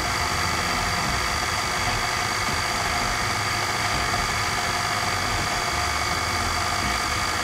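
KitchenAid stand mixer's motor running at a steady speed, driving the pasta sheet roller attachment as a sheet of pasta dough is fed through to roll it thinner.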